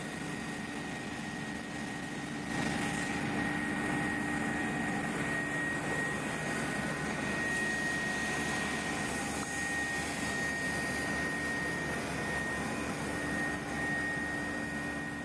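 Helicopter in flight heard from inside its cabin: a steady engine and rotor drone with a thin, steady high whine.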